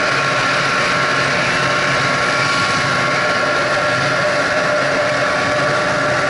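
Snowmobile running steadily at trail speed: an even engine whine over a rushing noise, with no change in pace.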